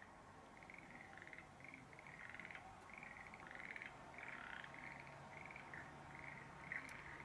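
Faint chorus of frogs calling: many short, rattling croaks repeating and overlapping.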